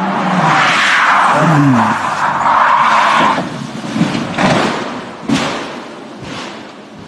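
Rally car sliding off a tarmac bend: its engine note drops sharply as the driver lifts off, a loud hiss of sliding tyres and loose grit follows, then a few thuds about four to five and a half seconds in as it runs into the verge.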